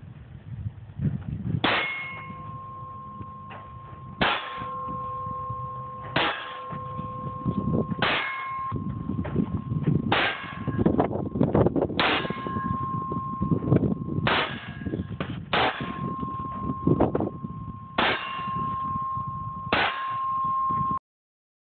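About ten gunshots, fired roughly every two seconds, each followed by the clang of a struck steel target ringing on in a steady tone. The sound cuts off abruptly near the end.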